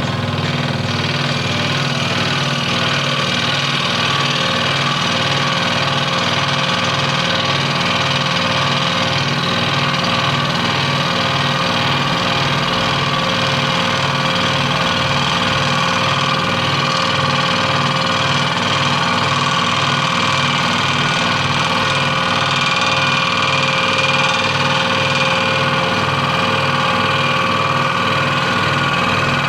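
Scroll saw running steadily, its reciprocating blade cutting wood.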